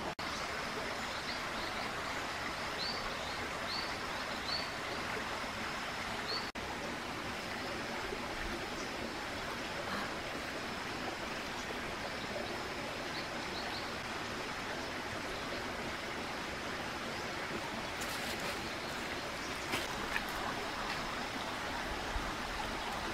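Steady, even rushing of shallow water flowing over the stones of a rocky river. Brief high chirps come several times in the first five seconds and again about thirteen seconds in.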